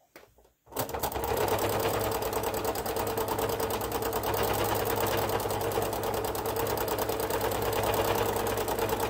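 Domestic sewing machine stitching at a steady, fast speed, a rapid even needle chatter that starts about a second in. It is doing free-motion thread-painting stitches around a fabric appliqué flower.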